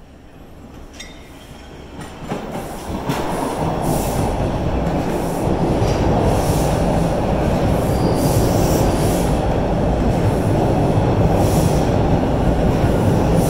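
TTC T1 subway train drawing in alongside the platform, its rumble growing louder over the first few seconds and then running loud and steady as the cars pass close by. Short high-pitched metal squeals break in several times.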